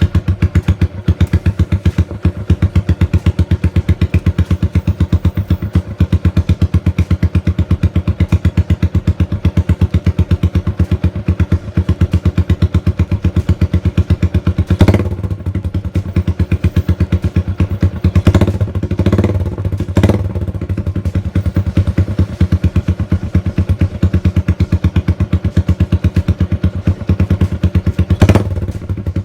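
Yamaha Sniper 135's single-cylinder four-stroke engine idling through a Zainez Racing conical open exhaust pipe, a loud, rapid, even train of exhaust pulses. The rider gives a few short throttle blips, around halfway through and again near the end.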